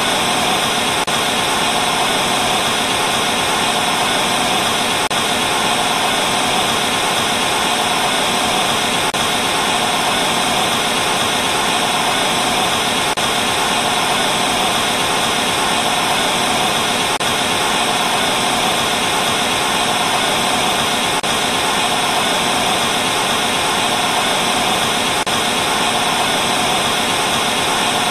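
Steady hiss of analog TV static, a television set with no signal, as an even, unbroken wash of noise.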